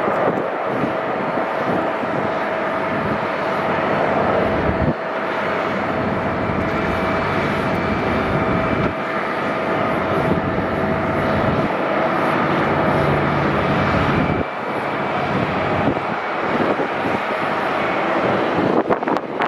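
Jet airliner engines running loud and steady, a continuous roar with a faint whining tone through it.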